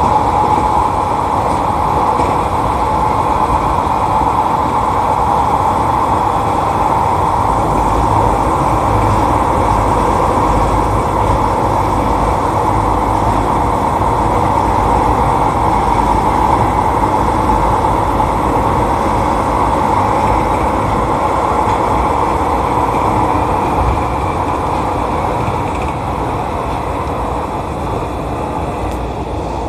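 Keisei electric commuter train running, heard from behind the driver's cab: a rumble of wheels on rail with a steady motor whine. It grows quieter over the last few seconds.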